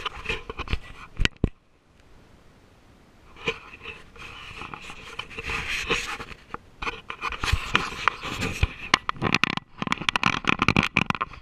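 Handling noise on an action camera: scraping, rubbing and sharp clicks as the camera is gripped, turned and positioned, with a quiet pause about two seconds in.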